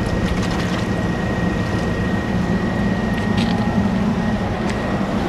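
Steady mechanical drone of running HVAC equipment, low and even, with a constant thin high whine over it and a few faint clicks.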